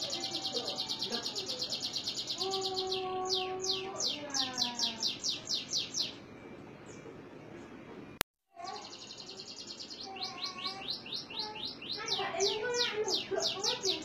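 Canary singing in fast trills of rapidly repeated high notes. The song breaks off about six seconds in, then a click and a brief dropout, and the trilling resumes soon after.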